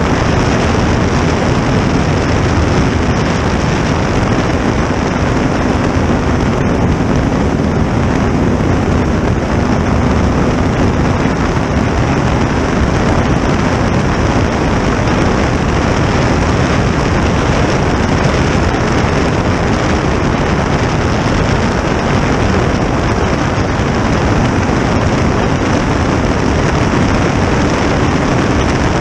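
A 2000 hp gas turbine powering a 23-foot jet boat at speed, heard onboard as a loud, steady rush of turbine noise mixed with wind and water.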